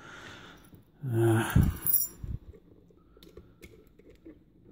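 A short hum or murmur from a person's voice about a second in, then faint scattered small clicks as fingers handle the metal euro profile cylinder lock.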